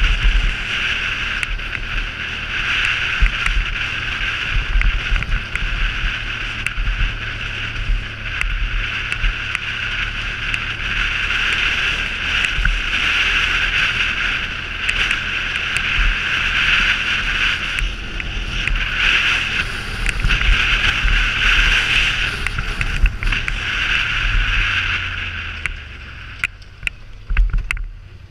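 Polaris Sportsman 850 ATV riding a gravel trail: its parallel-twin engine runs steadily under way, with tyres crunching over gravel and low thumps from bumps. The sound grows quieter over the last few seconds.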